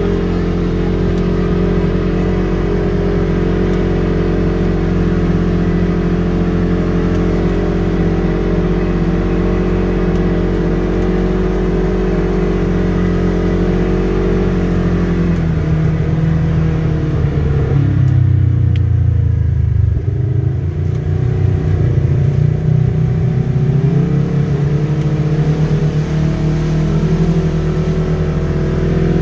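Polaris RZR side-by-side engine running steadily from inside the open cab. About halfway through it drops in pitch as the machine slows, then picks back up and accelerates again.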